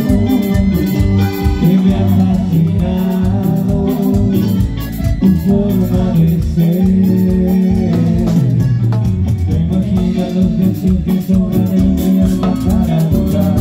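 Live Latin tropical band music with a steady beat: sustained accordion chords over congas and timbales, and a man singing.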